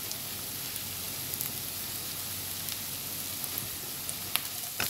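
Sliced spring onion and ginger sizzling steadily in hot oil in a wok, with a fine crackle and a couple of sharp clicks near the end.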